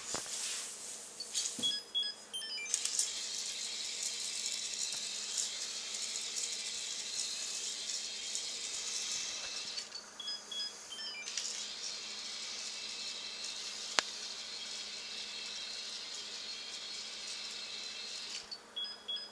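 LEGO Droid Developer Kit R2-D2 walking under its Micro Scout's motor, a steady high whir of motor and plastic gears. The whir stops three times, once near the start, once about ten seconds in and once at the end, while the Micro Scout plays short runs of electronic beeps. There is a single sharp click partway through.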